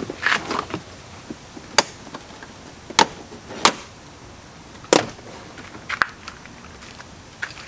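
Sharp plastic clicks and snaps, about six of them at irregular intervals, as a pickup truck's plastic door-sill trim is handled and pried loose.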